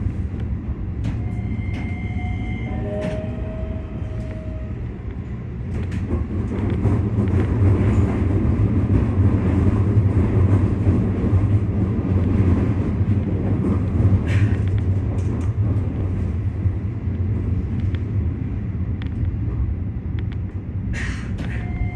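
Keikyu electric train running at reduced speed, heard from the cab: a steady low rumble of wheels and motors that grows louder about six seconds in, with brief high whining tones near the start.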